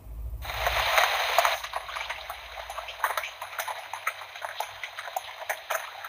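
Recorded rain sound played by a children's sound book's touch-pad through its small built-in speaker: a steady patter of raindrops with scattered drips, a little louder in the first second and a half.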